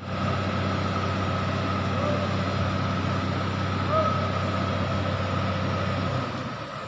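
Komatsu hydraulic excavator's diesel engine running steadily, with a steady high whine over it; it grows quieter about six seconds in.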